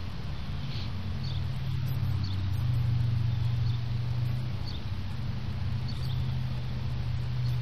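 A steady low mechanical hum, like a motor or engine running, holding the same pitch throughout, with a few faint high ticks.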